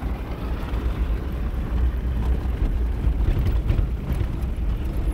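Steady low rumble of a vehicle driving along a dirt road, heard from inside the cab.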